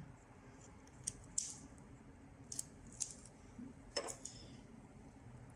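Quiet handling noises of a UV DTF sticker and its transfer film being worked onto a dish: a handful of light, sharp clicks and crinkles scattered through a few seconds, with no voice.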